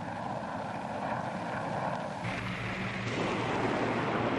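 Aircraft engine noise: a steady roar that grows slightly louder and turns brighter and hissier a little over two seconds in.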